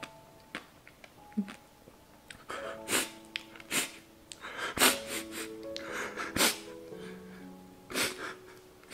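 A man sniffling and taking sharp, sobbing breaths while crying, as a string of short bursts through the second half, over soft background music with held notes.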